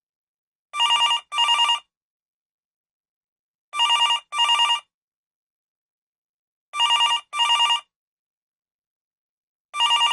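Electronic telephone ringer trilling in double rings: two short warbling bursts close together, repeating about every three seconds, four times.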